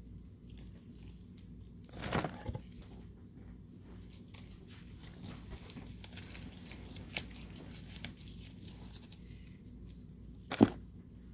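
Someone rummaging through craft supplies and molds: scattered rustles and light clicks, a short rustle about two seconds in and one sharp knock near the end.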